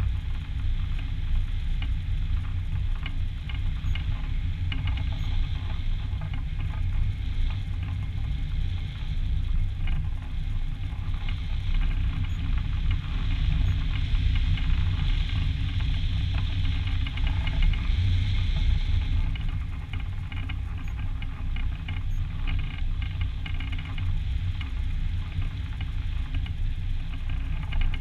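Wind rushing and buffeting over the microphone of a camera mounted on a hang glider's wing in flight: a steady low rumble with a crackly rush on top.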